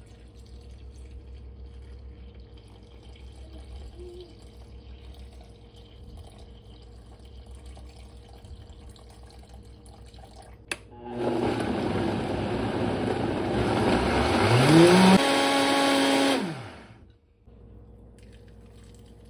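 A quiet trickle of water poured into a plastic blender jar. About eleven seconds in, a click, and the blender runs for about five seconds on a wet batter of rice flour, egg, potato and juice, its motor pitch rising as it speeds up and then holding. It winds down with a falling whine.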